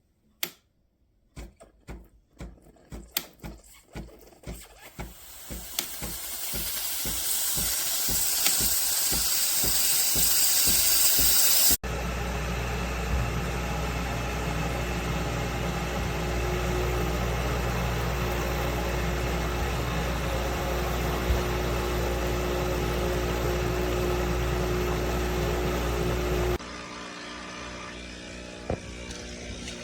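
Breville Barista Express espresso machine running: a series of pulses builds into a loud hiss, which cuts off suddenly about twelve seconds in. A steady pump hum follows and drops in level near the end.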